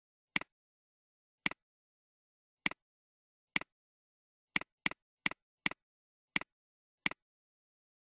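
Computer mouse button clicking about ten times at uneven intervals, faster in a run around the middle. Each is a short, sharp click followed closely by the click of the button's release.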